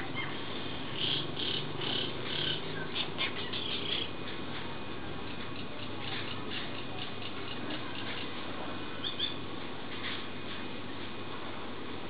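Birds chirping in short, high, irregular notes, thickest in the first four seconds and again briefly around nine to ten seconds in, over a faint steady high tone.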